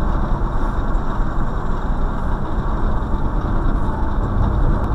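Steady road noise and engine hum of a moving car, heard from inside the cabin through a dash cam's microphone.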